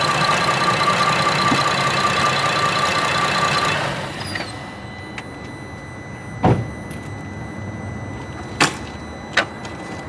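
3.6-litre V6 engine idling with a steady whine, then switched off about four seconds in. A few sharp knocks follow, the loudest a low thump about six and a half seconds in.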